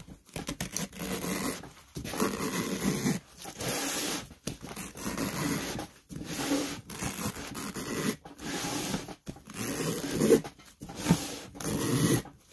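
Utility knife slicing through a lawn tractor tyre's rubber sidewall in repeated pulls, each a rasping tear a second or two long with short pauses between.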